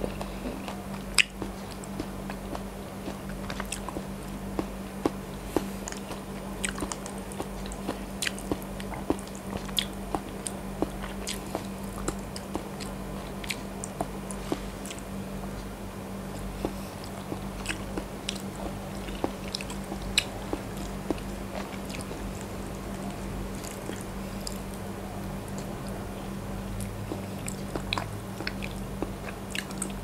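Close-miked, wet chewing and mouth sounds of a person eating soft Thai desserts with a spoon, with frequent small sharp clicks, the loudest about a second in.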